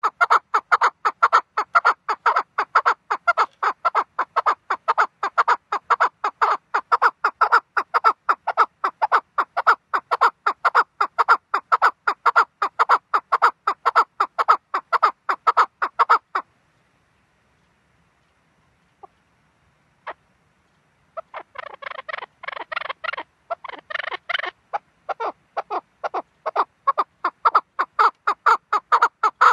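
Chukar partridge calling: a long run of rapid, evenly spaced call notes, about four a second, that breaks off about sixteen seconds in. After a pause of a few seconds, softer, scratchier notes start up and build back into the full rapid run. It is a chukar call used to lure chukars when hunting.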